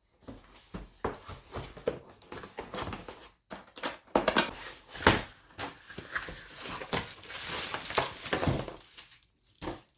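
Rustling and clattering of packaging and plastic parts being handled, with irregular clicks and crinkling, busiest in the middle.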